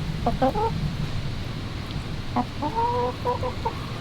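Backyard hens clucking: a short burst of calls about half a second in, then a run of several clucks later on.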